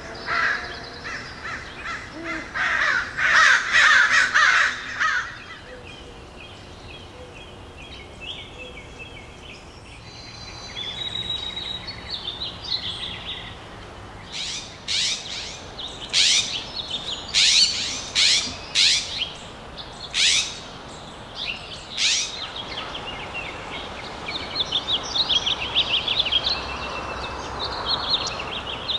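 Wild birds calling in the trees: loud, harsh calls for the first five seconds or so, then after a quieter stretch a run of sharp, high calls, with lighter chirping and twittering near the end.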